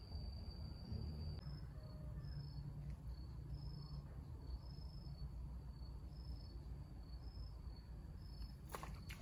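An insect calling: a steady, high, thin trill that after about a second and a half breaks into short chirps repeating a little over once a second, over a low outdoor rumble. A few sharp clicks near the end.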